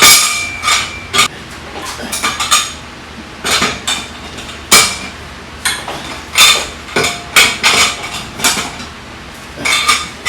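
Irregular sharp metallic clicks and clinks of wrench and lug nuts as a wheel is bolted on and tightened. One clink near the start rings briefly.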